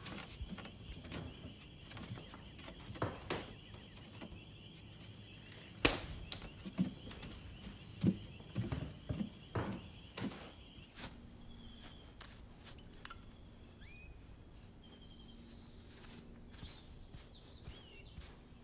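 Steady high chirping of insects in a night ambience. In the first half there is a run of soft knocks and thumps, the loudest about six seconds in.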